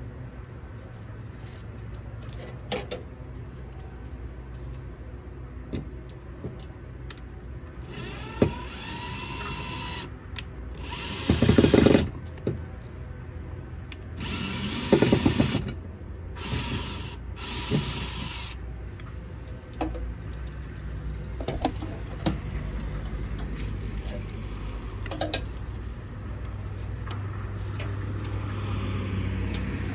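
Cordless drill run in five short bursts, the first spinning up in pitch, with light clicks and taps of hand work in between.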